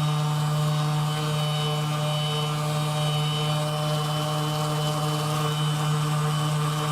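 Background music: a steady, held low drone with overtones, chant-like and meditative, unchanging throughout.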